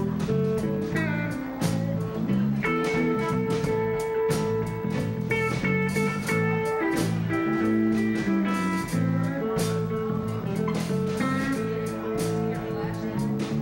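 Live band playing a bluesy jam: electric guitars plucking and strumming over a keyboard that holds long sustained notes.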